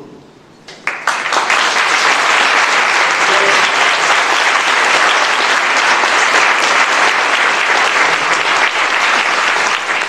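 Audience applauding: a roomful of people clapping steadily, starting about a second in after a brief lull.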